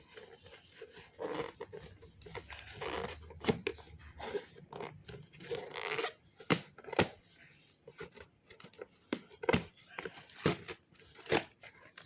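Packaging being torn and cut open by hand: ripping and crinkling sounds, with a run of sharp clicks and snaps, most of them in the second half.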